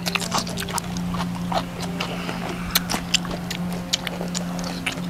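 Close-miked eating sounds: chewing and lip smacks, a quick irregular run of wet clicks, over a steady low hum.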